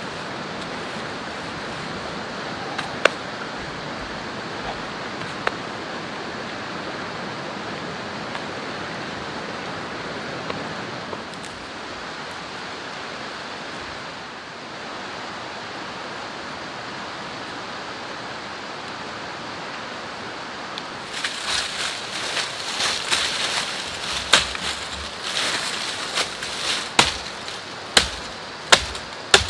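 Steady rushing of a shallow river. From about two-thirds of the way in, dry twigs and dead branches crackle and snap in brushwood, with several sharp, loud snaps near the end.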